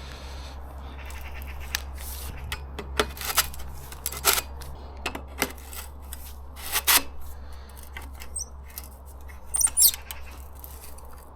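Gritty pole sections being slid and pushed together, with irregular scrapes, knocks and brief high squeaks: the joints are dry and want greasing. A steady low hum runs underneath.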